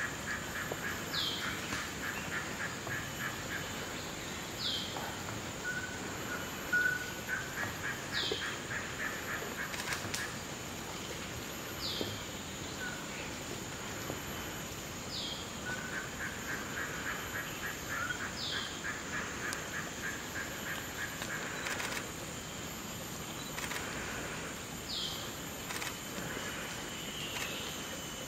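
Forest birds and insects: a short falling whistle repeated about every three and a half seconds, bursts of rapid chattering notes, and a steady high insect drone.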